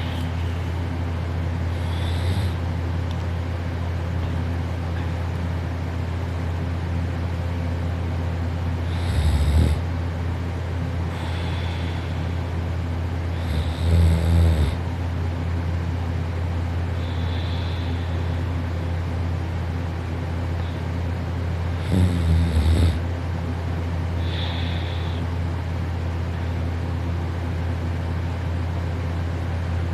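A person snoring while asleep, soft and gentle, with three louder snores several seconds apart over a steady low hum.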